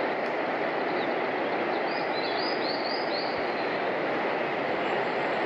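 Steady rushing noise of a train running on the rails, with a quick run of high chirps about two seconds in.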